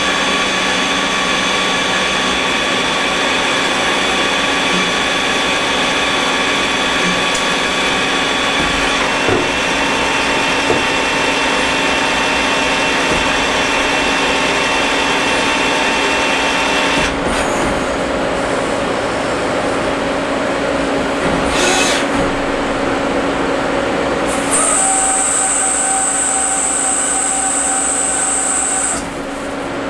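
Citizen A32VII Swiss-type CNC automatic lathe cutting a small metal part: a steady machine whine with cutting noise, its tone shifting several times as it goes.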